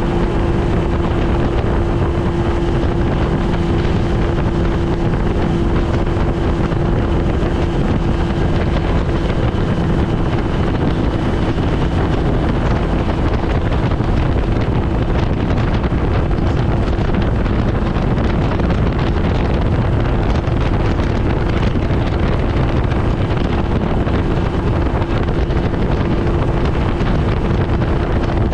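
1971 Evinrude Sportster 25 hp two-stroke outboard (OMC 22 cubic-inch twin) running at a steady speed, pushing a small aluminum boat along, with wind buffeting the microphone.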